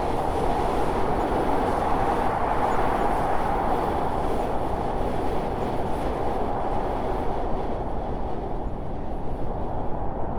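Steady rumble of a train running along the rails.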